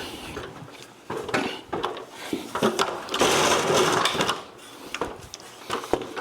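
Scattered knocks and clatter of a ladder being shifted, then a drill runs for about a second near the middle, boring a pilot hole into the OSB ceiling.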